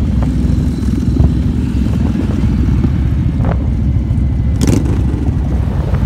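Motorcycle engine running while riding along at road speed, heard as a loud, steady low rumble mixed with wind noise on the microphone, with a short burst of noise about three-quarters of the way in.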